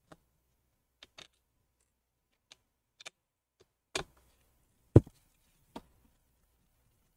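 Scattered small clicks and taps of a Torx screwdriver and tiny screws against the metal hinge and case of a MacBook Air, as the display hinge screws are undone; the sharpest click comes about five seconds in.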